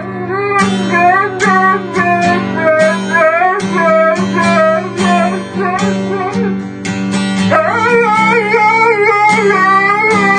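Background music: a strummed acoustic guitar with a sung or melodic line over it.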